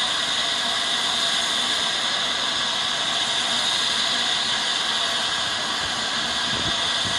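Flying Scotsman steam locomotive working slowly out of the station: a steady rushing hiss of steam with a rattling, mechanical edge, and no distinct exhaust beats.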